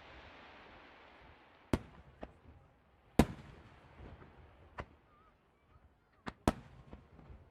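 Fireworks going off: about six sharp, irregularly spaced bangs, the loudest about three seconds in, with a fading hiss early on.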